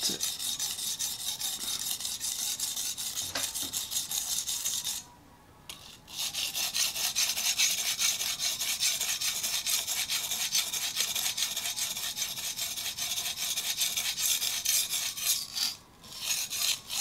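Shun Premier chef's knife being stroked quickly back and forth on the wet 240-grit side of a whetstone, a steady scraping as the edge is reground after the tip repair. The strokes stop for about a second some five seconds in, and briefly near the end.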